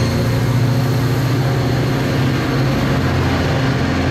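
Diesel locomotive engine running steadily with a low, even hum.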